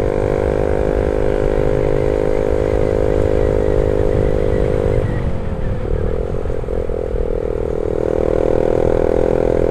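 Yamaha New Vixion Advance's 150 cc single-cylinder four-stroke engine running at steady cruising revs under way, over a low rumble of wind noise. About five seconds in the engine pitch dips, then climbs back and holds steady again.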